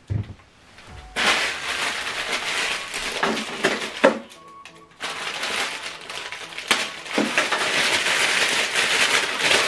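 Crinkling of a clear plastic accessory bag being handled and opened, in two stretches with a short lull just before the middle, over background music.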